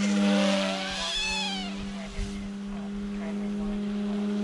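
OMPHOBBY M2 Explore RC helicopter's electric motor and rotors whining in flight: a steady hum, with a higher whine that rises and falls about a second in.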